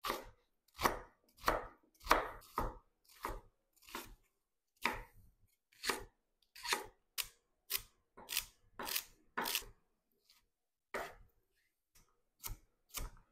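Kitchen knife chopping leeks and carrots on a wooden cutting board: a run of separate, sharp chops, about one or two a second, with a short pause about ten seconds in.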